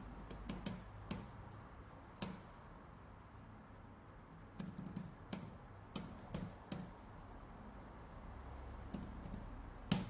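Light, irregular clicking at a computer keyboard and mouse: a few clicks in the first two seconds, a quiet stretch, a cluster of them about halfway through, and a few more near the end.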